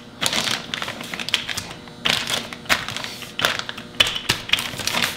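Wooden rolling pin pressed and rolled over ground beef in plastic vacuum-sealer bags: irregular clicking and crinkling of the plastic as the meat is flattened.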